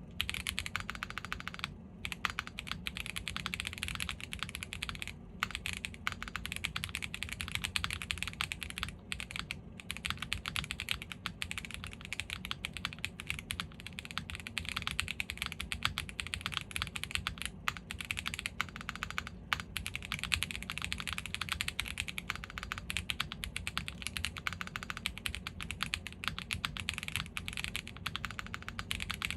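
Fast continuous typing on a gasket-mounted custom mechanical keyboard (Owlabs Jelly Evolv) with a polypropylene plate, stock WPJ Diamond Avalon switches and GMK Striker keycaps: a dense stream of keystroke clacks with a few brief pauses.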